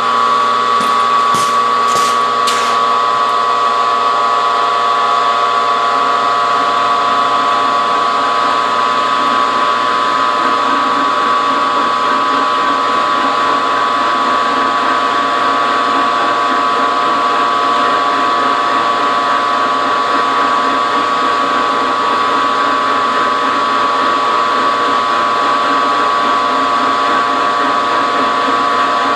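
Harbor Freight 40939 6x26 milling machine running a 3/4-inch end mill that is side-cutting a steel bar: a steady whine from the motor and gears under the cutting noise, with a few sharp clicks in the first few seconds.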